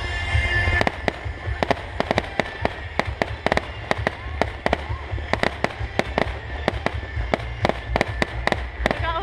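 Aerial fireworks bursting: a rapid, irregular run of sharp bangs and crackles, several a second.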